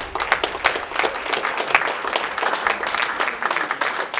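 Audience applauding, many hands clapping in a dense, uneven patter.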